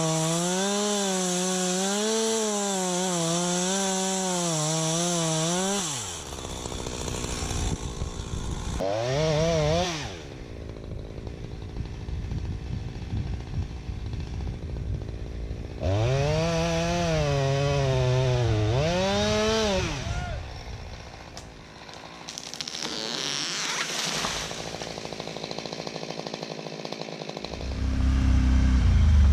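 Two-stroke chainsaw running at full throttle through a cut, its pitch wavering under load, then dropping off, revving up again and making a second hard cut. Near the end a deeper engine starts running.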